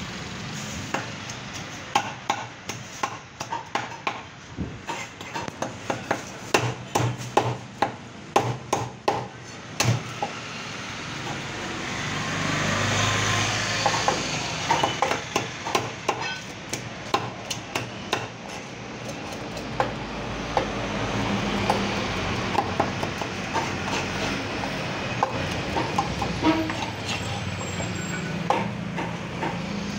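Quick irregular clicks and knocks of red snapper pieces being scraped and cut on a large curved blade over a wooden chopping block as the fish is scaled and cleaned. A low background rumble swells and fades about halfway through and again later.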